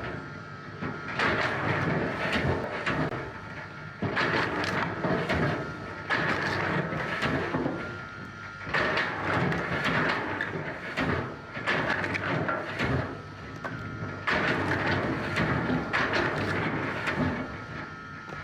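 Firewood processing machinery working in repeated cycles: a loud, clattering stroke starts suddenly about every two to three seconds over a steady machine tone.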